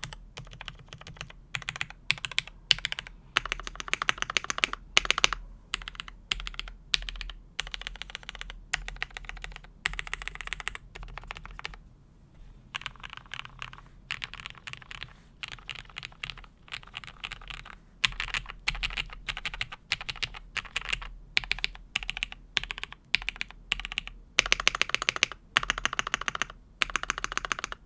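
Typing on a Keychron V1 mechanical keyboard with lubed Cherry MX Hyperglide Black linear switches, a steel plate, foam and tape mods, and doubleshot Cherry-profile keycaps: quick runs of keystrokes with short pauses, including a brief lull about twelve seconds in.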